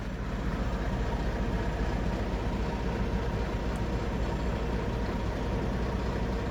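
Truck engine idling steadily, an even low rumble heard inside the cab.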